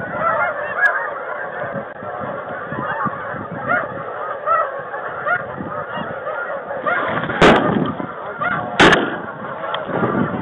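Many overlapping snow goose calls, short honks from a flock circling overhead. Two sharp bangs about a second and a half apart break in near the end of the calling.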